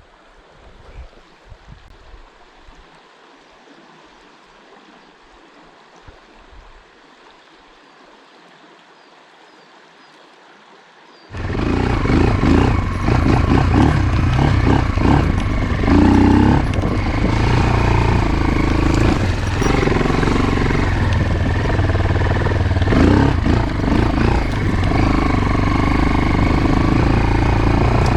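Faint riverside ambience with a quiet trickle of water, then, about eleven seconds in, a sudden switch to a motorcycle engine running loudly with wind noise, as heard while riding.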